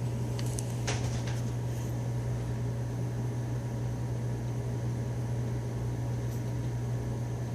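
A steady low hum under an even hiss, with a few faint clicks or rustles about a second in.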